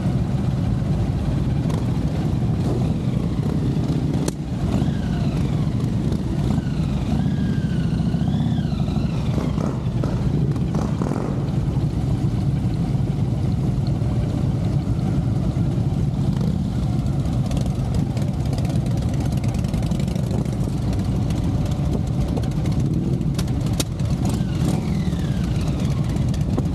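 Motorcycle engine running with a steady low rumble, with other motorcycles close by.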